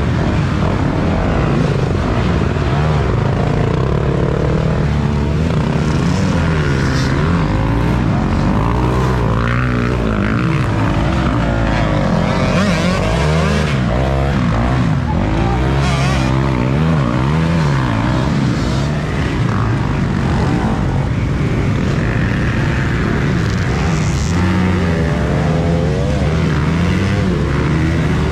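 Several off-road dirt bike engines revving hard at once, the pitch rising and falling over and over as the riders power through deep mud with rear wheels spinning.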